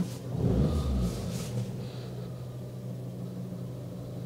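Fiat 500 petrol engine idling, heard from the driver's seat, with a steady low hum and a louder low lump about half a second in. It is a slightly rough idle that a swapped-in coil pack has not cured.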